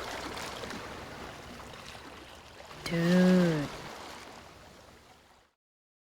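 Water sound effect: a steady wash of flowing, splashing water that fades out about five seconds in.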